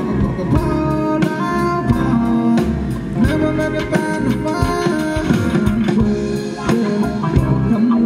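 Live rock band playing at a sound check: electric guitar and bass over a drum kit, loud and continuous.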